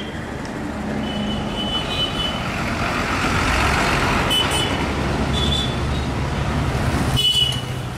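Bus engines running at the roadside, with a bus driving close past; its rumble and road noise are loudest about halfway through. A few brief high squeaks and a short sharp burst near the end.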